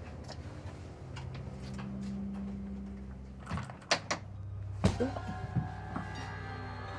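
A door being shut, with sharp knocks about four and five seconds in, over quiet background music with a low steady drone.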